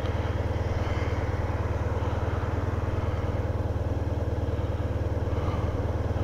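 Motorcycle engine idling steadily with an even, fast low throb.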